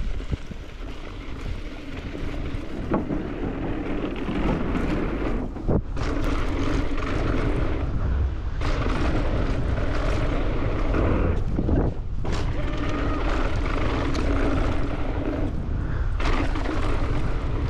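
Steady rush of wind over a helmet or chest camera's microphone, with the roll and rattle of a mountain bike's tyres on dirt during a fast descent. The hiss drops out briefly a few times.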